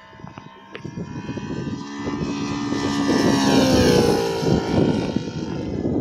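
Seagull Bearcat RC model warbird's Saito 60R3 three-cylinder radial engine and propeller flying past. It grows louder to a peak about four seconds in, its pitch dropping as it passes, then begins to fade.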